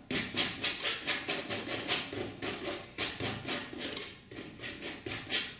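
Flexible steel painting knife scraping and rubbing oil paint across a taut cotton canvas in quick short strokes, about four a second.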